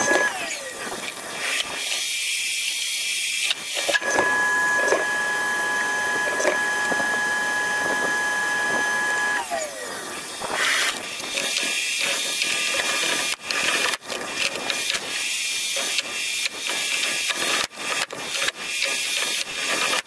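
Table saw running, its motor tone gliding down as the blade spins down about nine to ten seconds in. This is followed by a series of sharp clicks and knocks.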